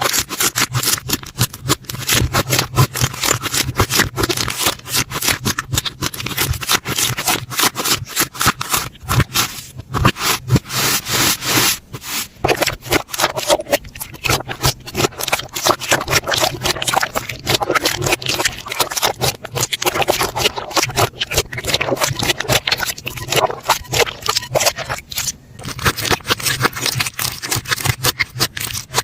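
Hands squishing and pressing slime close to the microphone, making a dense, irregular run of rapid clicks and small pops.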